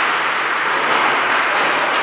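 Steady ice-rink noise during a hockey game in play: an even rushing sound, with no distinct stick or puck hits.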